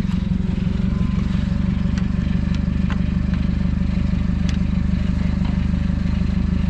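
Car engine idling steadily, loud and close, with a few light clicks and taps on top.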